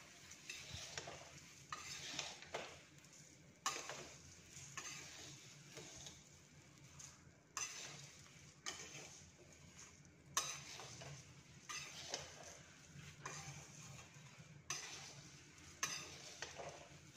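Metal spatula stirring and turning flattened rice (poha) in a metal kadai, a dry scrape about once a second, with a faint sizzle as it roasts in oil. It is kept moving constantly so it does not burn while it crisps.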